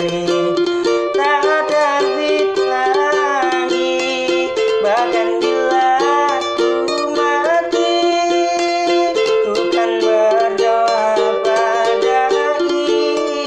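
A street busker singing a melody over steadily strummed chords on a small string instrument.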